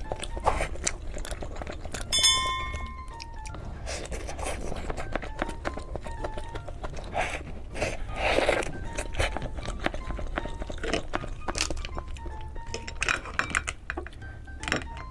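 Eating a large cooked brown crab: crunching and cracking of shell, chewing and light clinks against the plate, with a loud bite near the middle. Light background music with a simple melody plays underneath.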